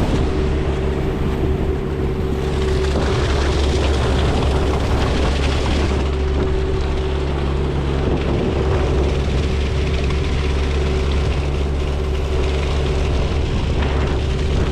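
Engine of a hydroseeding rig running steadily at a constant speed, a loud, even hum that holds throughout.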